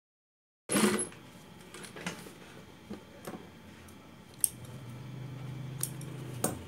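Industrial lockstitch sewing machine: sharp metallic clicks and knocks as the fabric is set under the presser foot, then a steady low motor hum from about five seconds in. A moment of dead silence opens it.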